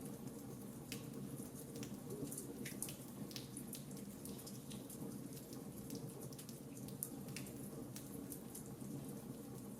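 Fireplace fire crackling: irregular sharp pops and snaps over a steady low rumble of the burning flames.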